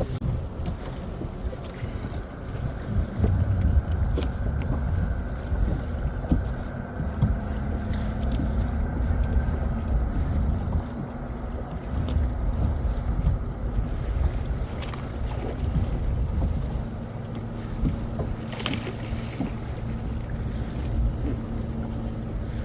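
Wind rumbling on the microphone aboard a bass boat, with a steady electric hum that sets in about a third of the way through, most likely the electric trolling motor. A couple of brief knocks come near the end.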